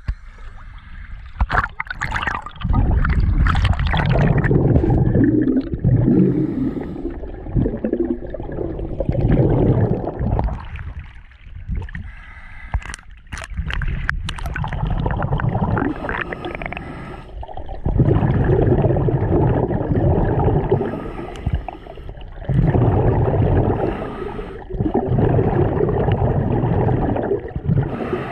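Scuba diver breathing underwater through a regulator: splashing at the surface in the first couple of seconds, then a series of gurgling bursts of exhaled bubbles, each lasting a few seconds, with short quieter gaps between them for the inhales.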